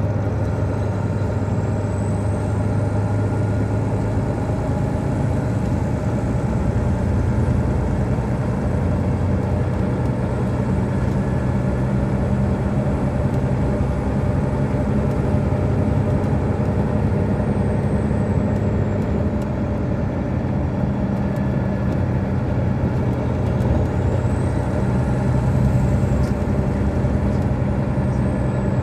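Detroit Diesel Series 60 straight-six diesel of an MCI D4000 coach heard from on board while driving: a steady engine drone whose pitch shifts a few times, with a faint high whine rising and falling over it.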